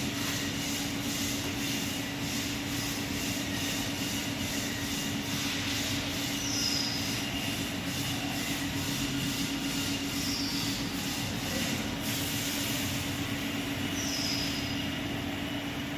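Vacuum leak tester's pump running: a steady hum with a fast pulsing hiss, and three brief high chirps spaced about four seconds apart.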